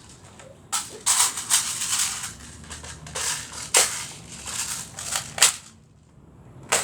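Airsoft AR-style rifle being reloaded by hand in a tactical reload: a run of sharp clacks and clicks from the magazine and gun body, with rattling and scraping between them.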